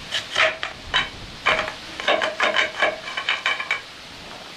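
Broom handle scraping and knocking against the concrete of a septic tank riser as it is worked into notches cut in the rim: a quick run of short scrapes and taps that stops near the end.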